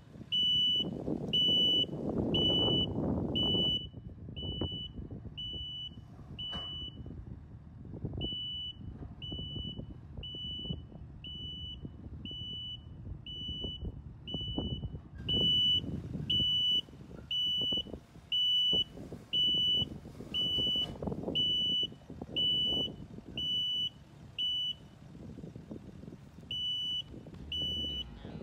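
Heavy equipment backup alarm: a steady string of single high-pitched beeps, a little more than one a second, that drops out briefly near the end and then resumes. Underneath, diesel machinery runs, its rumble rising and falling.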